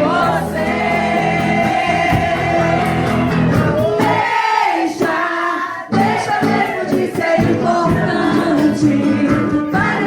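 Background song with sung vocals over a band accompaniment; the low end drops out briefly around the middle.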